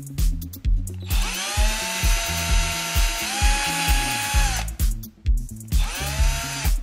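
Cordless drill drilling a small hole through a plastic headlight mounting flap, in two runs. In the first, about three and a half seconds long, the motor whine rises in pitch as it spins up and steps higher partway through before winding down. A shorter second run comes near the end. Background music with a steady beat plays underneath.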